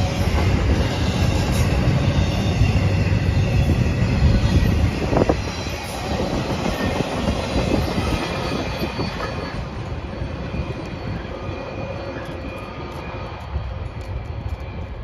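Freight train's empty trailer flatcars rolling past on the rails, the wheels rumbling with a faint high squeal. The noise fades steadily from about five seconds in as the end of the train moves away.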